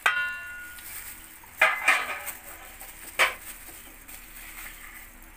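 Metal spoon knocking against a stainless steel mixing bowl of chopped vegetables: four sharp clinks, the first ringing briefly.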